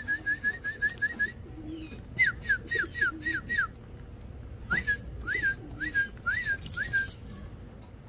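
A songbird singing in phrases of repeated clear whistled notes: a fast run of short rising notes, then about six slower falling notes, then several notes that rise and fall.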